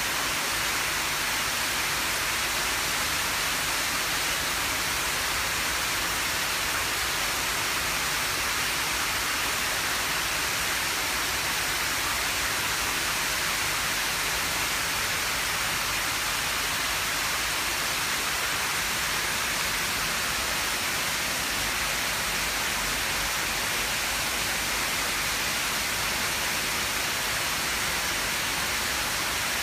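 Steady rushing of moving water in a koi pond, from the pond's filter and water circulation, with no change throughout.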